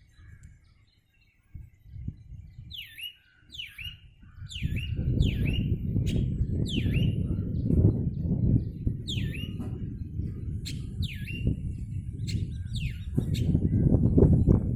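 A bird repeating a short downward-sweeping chirp, about one or two a second, beginning around three seconds in. From about five seconds a loud low rumble runs underneath and is the loudest sound.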